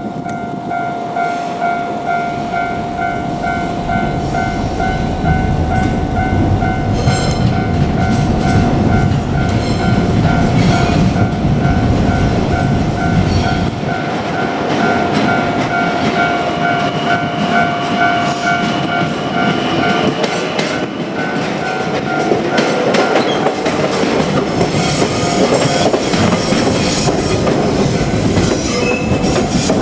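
Japanese level-crossing warning bell ringing in a steady, rapid repeating electronic ding while a JR Kyushu 817-series electric train approaches and runs over the crossing, its wheels clacking over the rail joints. The bell stops about two-thirds of the way through, leaving the train's running noise.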